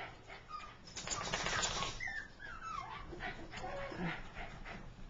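Dog whining in short high cries that slide down in pitch, with a second-long scuffling noise about a second in.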